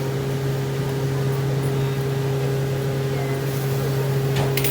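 Steady mechanical hum, even in level throughout, with a brief clatter near the end.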